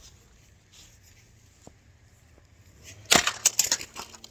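Toy excavator being smashed: a quick run of hard impacts about three seconds in, lasting under a second.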